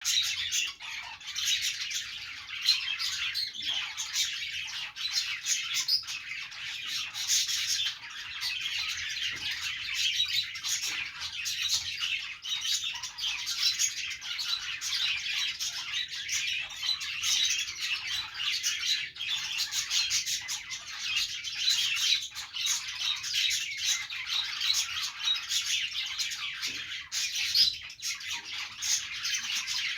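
Several budgerigars chattering and warbling together, a dense, unbroken stream of high chirps and squawks.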